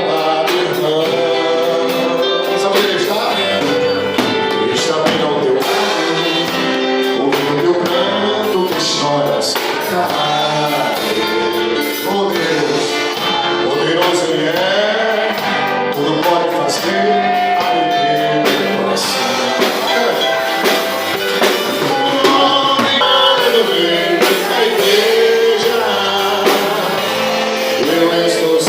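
Gospel worship song performed by a band, with a male lead voice singing over the instruments.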